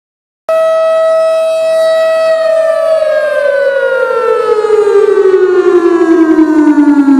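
Synthesized single-tone civil-defense siren sound. It cuts in suddenly at full pitch, holds a steady loud tone for about two seconds, then winds down in a long, steadily falling tone.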